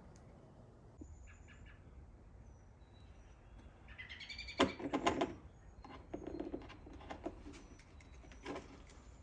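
Songbirds chirping and whistling, loudest about halfway through, with a few sharp clicks in between.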